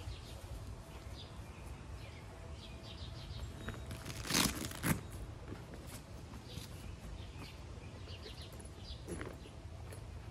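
Outdoor backyard ambience: birds chirping on and off over a steady low rumble. About four and a half seconds in come two short, loud rustling noises half a second apart, as the nylon tent carry bag is handled.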